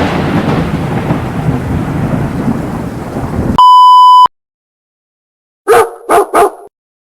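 A loud rumbling crash like a thunderclap, fading away and then cut off, followed by a steady high-pitched censor beep of under a second. After a gap of silence come three quick short sounds near the end.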